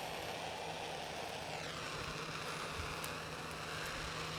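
Steady low engine hum, with a faint whine that falls in pitch about a second and a half in.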